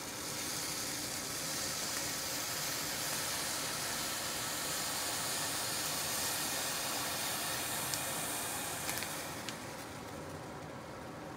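Melt water from a frozen block of curry udon sizzling against the bottom of a hot stainless steel pot, a steady hiss that quietens about nine seconds in. A couple of faint ticks come near the end.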